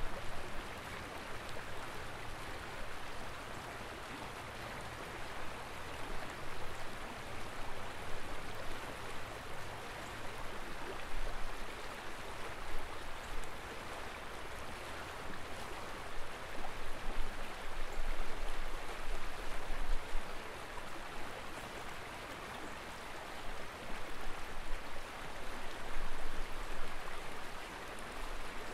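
Water of the Guadalupe River rushing over shallow rocky rapids, a steady hiss, with a low rumble that swells now and then.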